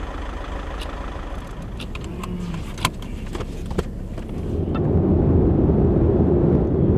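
Car running and driving, a steady engine and road rumble that grows louder about four and a half seconds in, with a few short clicks.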